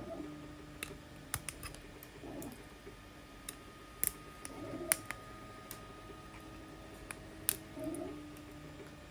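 Plastic support material being picked and snapped off a 3D print: sharp, irregular clicks and cracks, about a dozen, over a steady hum.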